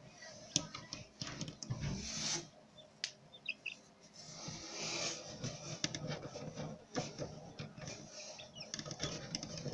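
Handling noise inside an egg incubator: hands and the phone rubbing and lightly knocking against the eggs and trays in irregular bouts, over the incubator's low steady hum.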